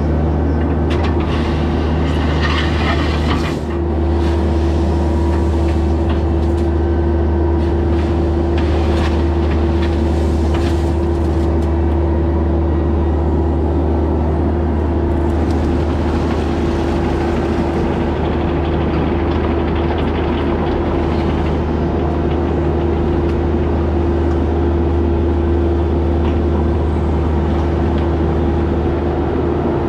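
Heavy engine running at a constant speed with a deep, steady drone, with brief clatters and scrapes now and then.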